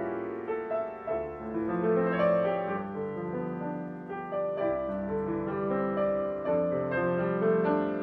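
Background piano music: a gentle melody of held notes.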